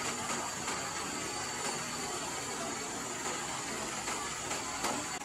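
Bus engine running steadily beside the elephant, a constant hum and hiss with a steady high-pitched whine above it, and one brief tap near the end.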